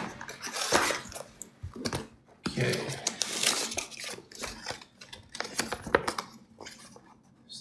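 Paper packaging rustling and crinkling in the hands: a torn kraft-paper mailer being handled and glossy printed flyers slid out of it, with a few light taps and clicks in between.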